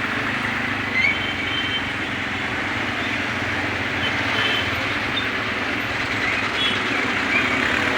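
Steady vehicle noise: a constant rumble and hiss with a few faint, short high chirps.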